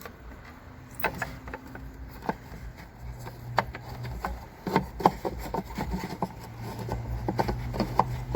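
Irregular light plastic clicks and knocks as a car tail-light assembly and its bulb socket are handled and fitted back into place, with a low hum coming and going underneath.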